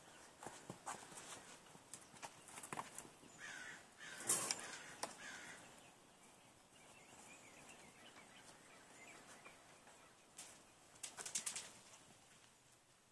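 A dog's excited whines and squeaks, a few short ones about three to five seconds in, among scattered clicks and taps. A quick run of taps comes near the end.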